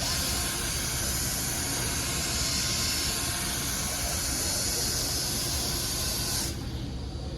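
Milwaukee M12 cordless buffer running on a headlight lens, a steady hissing whir with a faint high hum, cutting off about six and a half seconds in and leaving a low rumble.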